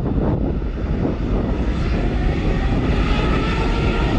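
Air New Zealand Boeing 787-9's Rolls-Royce Trent 1000 jet engines at takeoff thrust as the airliner rolls down the runway: a loud, steady rumble, with a faint whine coming in during the second half.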